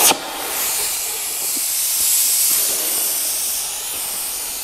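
Gas cutting torch's flame hissing steadily while held lit. Right at the start the louder cutting-oxygen jet shuts off, as the cut through the flywheel ring gear is complete.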